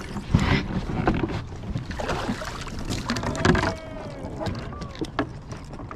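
Splashing and irregular knocks and scrapes against a plastic kayak hull as a large flathead catfish is landed, gripped by the jaw and hauled aboard.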